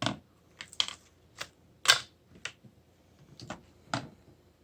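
Sharp, irregular clicks and crackles of plastic toy packaging being handled and pulled open, about nine in all, the loudest about two seconds in.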